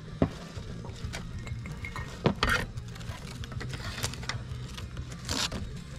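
Scattered clinks and knocks of tableware and cooking utensils being handled at a camp meal, the loudest a little over two seconds in, over a steady low rumble.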